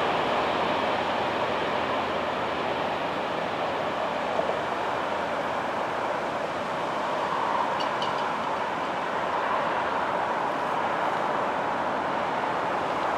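Steady rushing rumble of a freight train running on along the track, holding level, with a faint click about eight seconds in.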